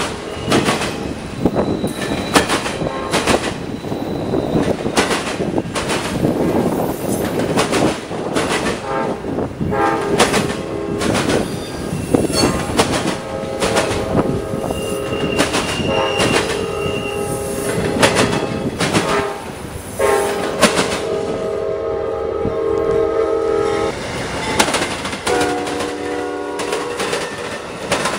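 Freight train of autorack cars rolling past, the wheels clicking steadily over the rail joints. From about a third of the way in, a multi-note train air horn sounds in several blasts, the later ones long.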